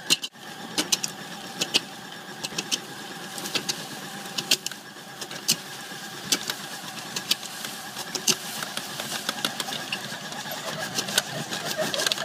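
Bench-top laboratory mortar mixer running, its paddle churning a stiff cement mortar that holds bauxite and stainless steel fibre. A steady motor hum with frequent irregular sharp clicks and rattles as the mix knocks against the steel bowl.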